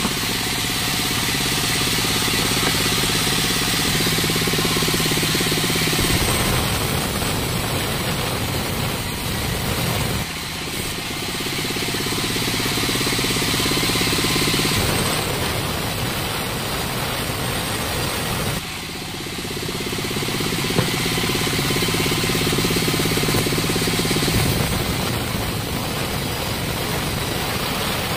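Sawmill band saw running and ripping a bark-edged wood slab lengthwise, a loud steady cutting noise. It drops briefly about ten seconds in and again near nineteen seconds, as one pass ends and the next begins.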